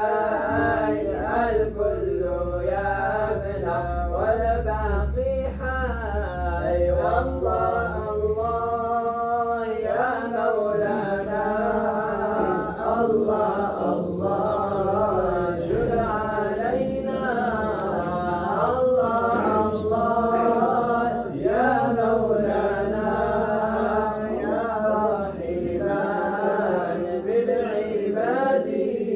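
Moroccan amdah nabawiya, devotional chanting in praise of the Prophet: voices chanting one melody in long, gliding phrases, with short breaths between lines.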